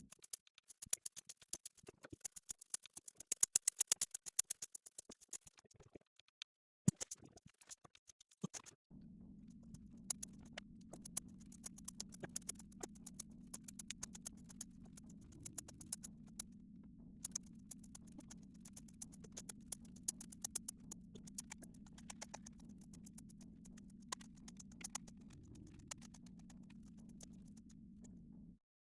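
Dry pinto beans clicking and pattering, many small light taps in quick succession, as they are counted out by hand. The taps are densest in the first few seconds and then come more sparsely. A steady low hum sits under them from about nine seconds in.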